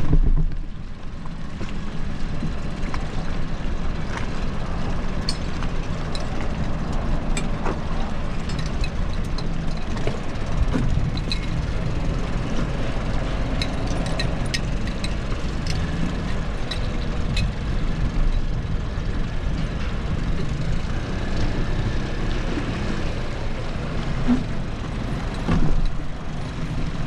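Boat engine running steadily, with scattered light clicks and a brief louder bump near the end.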